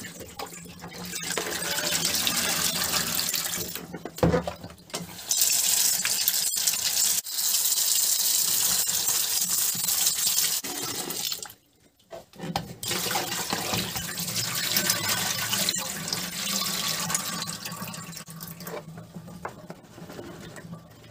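Tap water running into a plastic basin of cut potatoes in a stainless steel sink as the potatoes are rinsed by hand. The flow stops for about a second roughly halfway through, then runs again.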